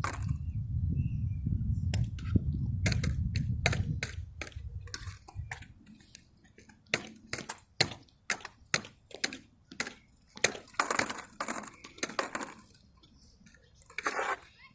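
A low rumble that fades out about five seconds in, followed by a string of sharp, irregular clicks and knocks.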